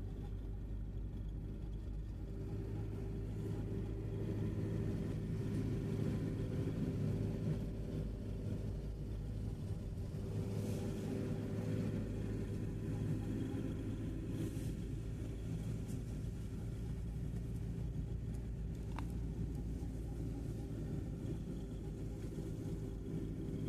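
Van driving along a village road, heard from inside the cab: a steady low engine hum with road rumble from the tyres.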